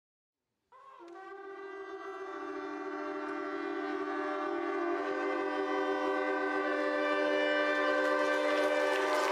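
Several shofars blown together in one long blast, their different pitches sounding at once as a buzzing chord. It starts abruptly under a second in, with a slight bend as the blowing sets in, then holds steady and grows louder.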